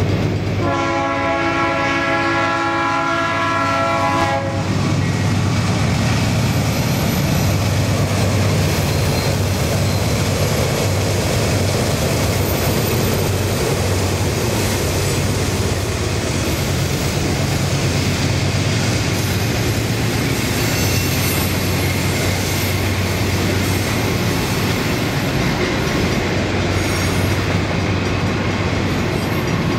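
BNSF diesel freight train's locomotive air horn sounding a chord of several tones for about four seconds, then the locomotives' diesel engines and the freight cars rolling past close by on the rails.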